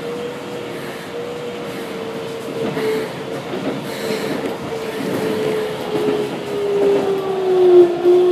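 Keikyu N1000-series electric train with a Siemens GTO VVVF inverter: the inverter and traction motor tone slowly falls in pitch as the train slows into a station, over the rumble of the wheels on the rails.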